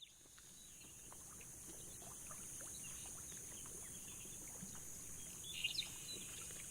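Faint outdoor ambience fading in, a steady hiss with scattered short bird chirps and one louder brief call about five and a half seconds in.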